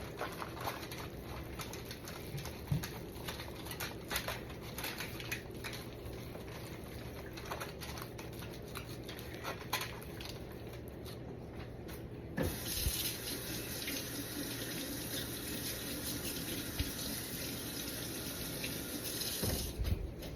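Small wet slaps and rubbing of hands spreading binder over a raw brisket. About twelve seconds in, a kitchen tap starts running in a steady hiss, then stops shortly before the end.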